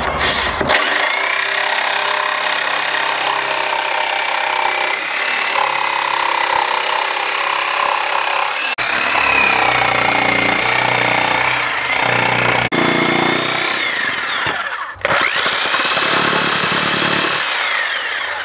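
Corded DeWalt jigsaw ripping lengthwise along a chalk line through a wooden board, running with a high motor whine that shifts a little in pitch. The saw cuts out briefly a few times and starts up again.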